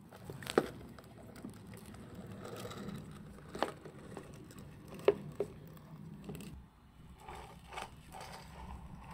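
A Reeves' turtle with a small skateboard under its shell scrabbling free of a tight gap. Its shell and board knock sharply against a plastic tub and a wooden floor several times, between scraping and the rumble of the little wheels rolling on the boards.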